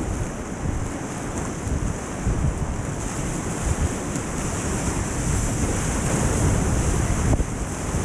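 Whitewater rapids rushing and churning right around a kayak running through them, a steady loud rush with a heavy low rumble.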